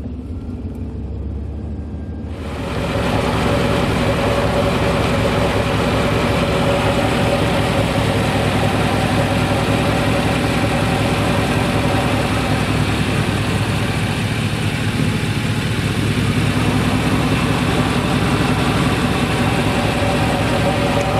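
Chevy 5.7 L V8 engine of a jacked-up pickup idling in drive, turning the driveline, with a steady low hum. About two seconds in it grows louder and fuller, then holds steady.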